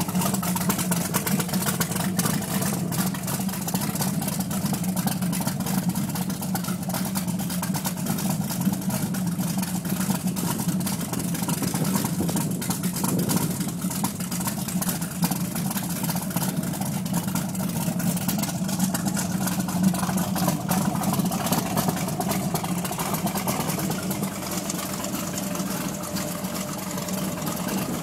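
Engine of a 2002 Lightning powerboat idling steadily, an even, unbroken run with no revving.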